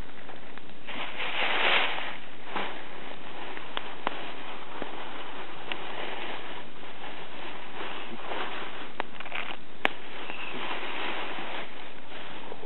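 Campfire of dry firewood crackling, with a steady hiss and a handful of sharp single pops; a louder rush of noise comes about a second in.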